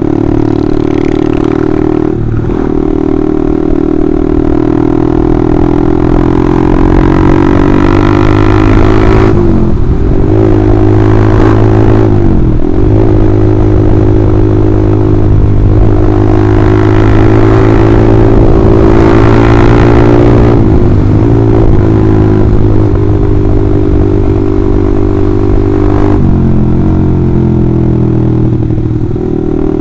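Honda CBR150R's single-cylinder engine through a loud aftermarket Austin Racing exhaust, running steadily under way. The note dips and picks up again several times, near 10, 13, 21 and 26 seconds in, as the throttle is eased and reopened.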